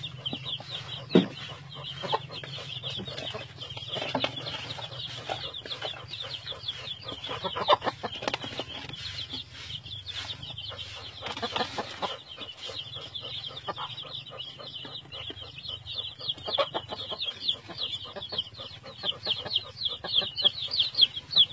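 A brood of young chicks peeping continuously and noisily, many short, high, falling cheeps overlapping, as they feed excitedly on black soldier fly larvae. Scattered light taps and rustles come from pecking in the straw.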